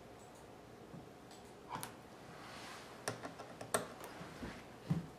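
Scattered light clicks and taps of a small screwdriver working the keyboard screws of a Dell Inspiron 1720 laptop. The clicks come irregularly, mostly in the second half.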